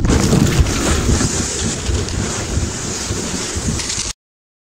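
Plastic kayak hull sliding fast down a snowy slope: a steady rushing scrape of snow under the boat, with wind buffeting the microphone. It cuts off abruptly about four seconds in.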